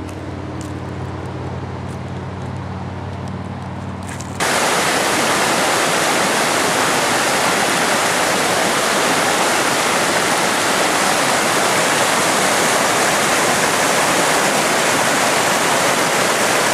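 Low steady hum for about the first four seconds, then a sudden cut to the loud, steady rush of river rapids pouring over rock ledges.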